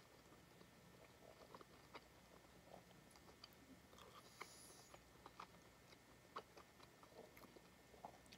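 Faint chewing of a mouthful of saucy McRib sandwich: soft, scattered wet mouth clicks, with a short breath out about four seconds in.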